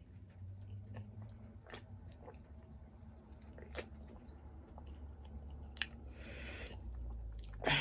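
Quiet close-up mouth sounds of a person drinking soda from a can and chewing: faint swallows and small wet clicks. A loud burp starts right at the end.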